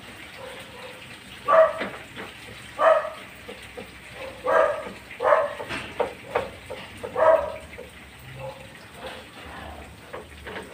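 A dog barking repeatedly, short loud barks about one every second or two, over a faint steady sizzle of coconut milk frying down in a pan.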